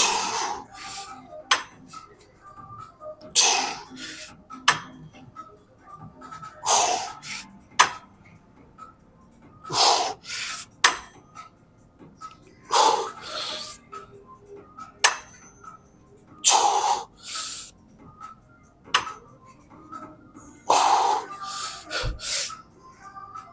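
A lifter's hard, rough exhalations during a set on a chest press, one per rep. There are about seven, roughly three seconds apart, with short clicks from the machine between them.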